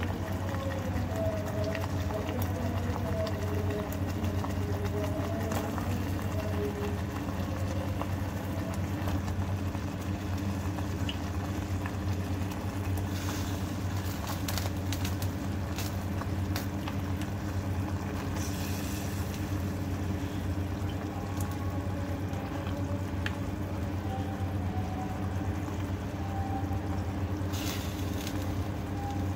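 Tomato masala simmering in a clay handi, with a steady low hum underneath. Partway through, a run of clicks and knocks as the cut tinda pieces are dropped into the pot and the spoon knocks against the clay, with a few more knocks near the end.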